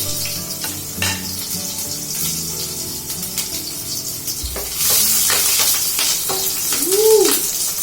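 Coconut oil sizzling in a hot pan, with a few light knocks of a spoon stirring. The sizzle turns louder about five seconds in, as something goes into the oil.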